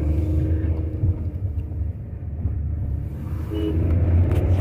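Tata Nexon heard from inside the cabin while driving up a steep mountain road: a steady low engine and road rumble.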